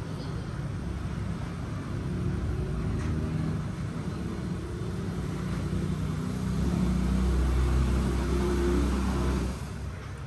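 An engine rumbling with a low, steady drone that grows louder from about two-thirds of the way in, then drops away near the end.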